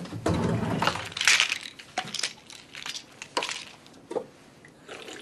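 A desk drawer is pulled open and rummaged through with a rustling, scraping clatter, followed by a few light clicks and knocks as a small pill bottle is taken out and set on the desk.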